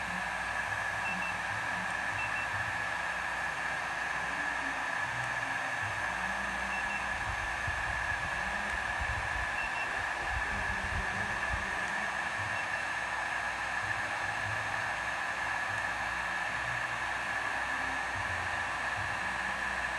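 Hoyoma HTHG-2000C 2000 W heat gun running steadily: a rush of blown air with a steady high whine through it.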